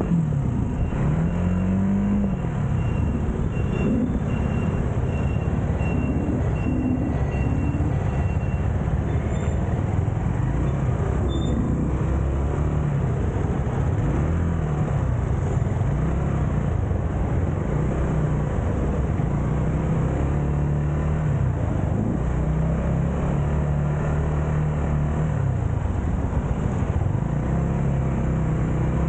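Motorcycle engine running as it is ridden through traffic, its pitch rising and falling again and again as the bike speeds up and slows down, over a steady rush of road noise, picked up by a handlebar-mounted camera.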